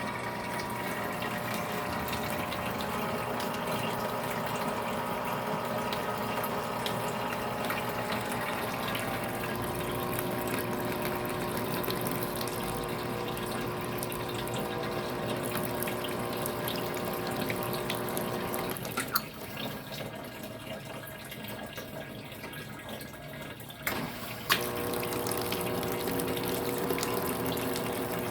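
Homemade parts washer running: its pump circulating the washing liquid, a steady whir over splashing water. About two-thirds of the way through it drops quieter for about five seconds, with a click where it drops and a click where it comes back.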